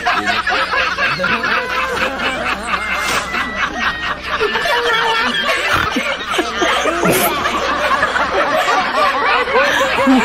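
Laughter that goes on without a break.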